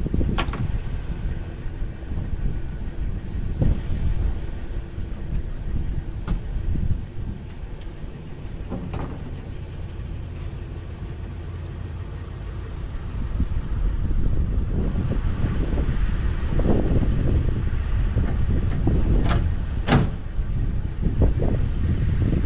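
Scattered sharp knocks and thumps from a homemade wooden ramp of plywood and 2x4s as it is handled and stepped and climbed on, over a steady low rumble that grows louder in the second half.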